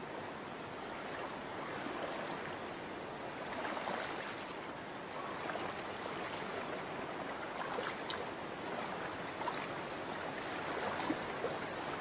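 Shallow stream water running and burbling, with a few small splashes.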